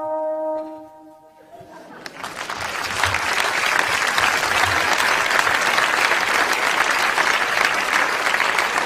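The last held note of an alphorn fades out, then an audience breaks into applause about two seconds in and keeps clapping steadily.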